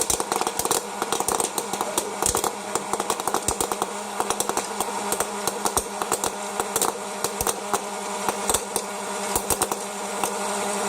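West Bend Air Crazy hot-air popcorn popper running, its fan motor humming steadily while kernels pop in a rapid, irregular string of sharp cracks.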